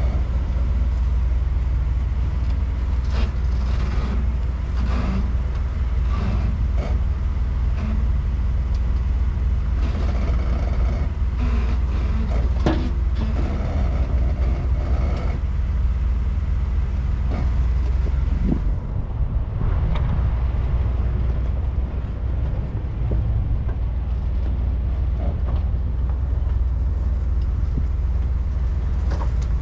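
Off-road vehicle engine running with a steady low drone, with scattered knocks and clunks over it.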